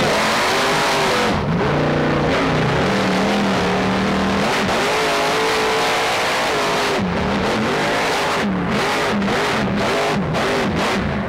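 Grave Digger monster truck's engine running hard, its pitch swinging up and down as the throttle is worked, heard from inside the cab, mixed with rock guitar music.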